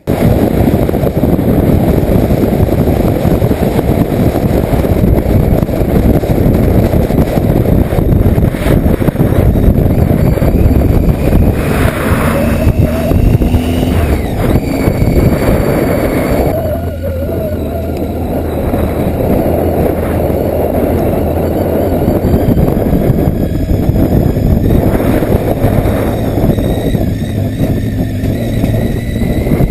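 Motorcycle ride heard from on board: loud wind rushing over the microphone, with the engine running underneath.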